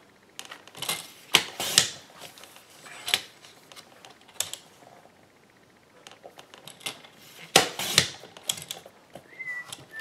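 Sheets of white cardstock being handled and cut on a Fiskars paper trimmer: scattered sharp clicks and taps of paper and trimmer parts, bunched about a second in and again near the end.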